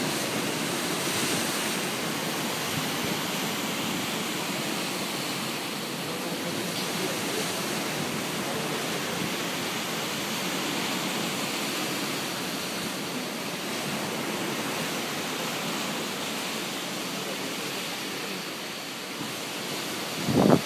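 Sea surf: a steady, even rush of waves washing on the shore.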